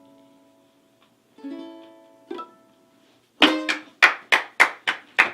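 Electric ukulele chord ringing out and fading at the end of a song, then another chord strummed and quickly damped. After that, a few seconds of hand clapping at about three claps a second.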